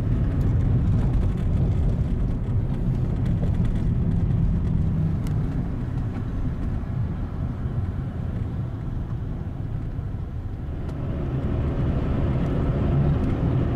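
Steady low engine and road rumble inside the cabin of a moving 1990 Honda Accord with its four-cylinder engine, no stereo playing, and a couple of faint clicks.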